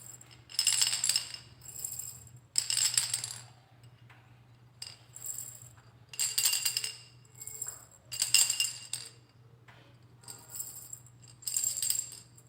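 Montessori sound-box cylinders shaken one after another, a dozen or so short rattling shakes, louder ones alternating with softer ones, as the cylinders are compared to verify which is the softest. A steady low hum sits underneath.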